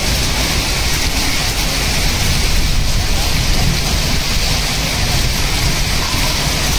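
Heavy rain mixed with hailstones pelting a concrete rooftop terrace: a loud, steady, dense hiss.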